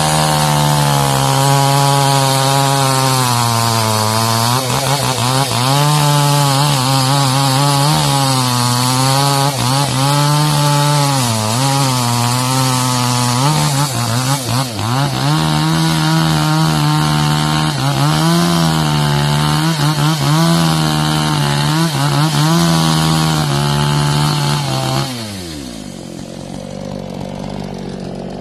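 Two-stroke chainsaw cutting mangosteen wood at high revs, its pitch dipping and recovering as the chain loads up in the cut. About 25 seconds in, the throttle is released and the engine drops to a quieter idle.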